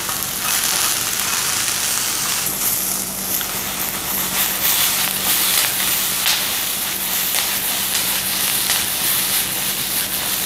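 Diced eggplant, onion and sausage sizzling in hot oil in a frying pan, a steady hiss with crackling spatter, as the food is stirred and tossed in the pan.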